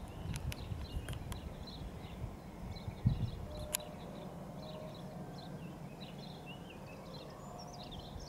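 Outdoor ambience: wind rumbling on the microphone, with small birds chirping throughout and a few sharp clicks in the first four seconds.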